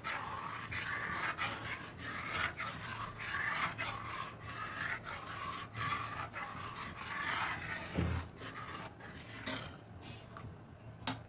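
Besan (gram-flour) batter being stirred in a cooking pot on a high gas flame, the spoon scraping and swishing in strokes about twice a second. There is one louder knock about eight seconds in.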